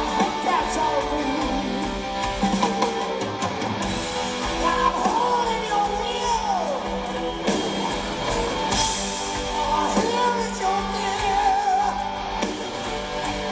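Live rock band in an arena, recorded from the audience: electric guitar and drums with the drummer singing lead, his voice sliding up and down.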